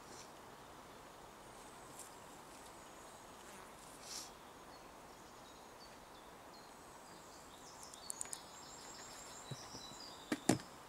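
Quiet outdoor background with a run of faint high chirping notes. Near the end come two sharp knocks from a plastic bucket lid being handled.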